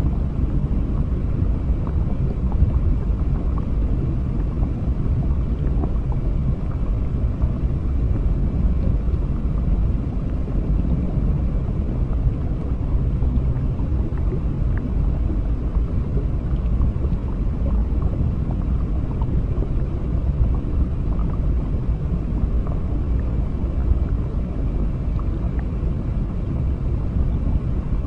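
Underwater ambience: a steady deep rumble with faint small ticks scattered through it.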